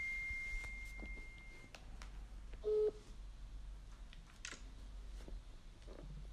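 Ringback tone from a smartphone on speaker while an outgoing call rings unanswered: one short low beep about three seconds in. It follows a high steady tone that fades out over the first two seconds.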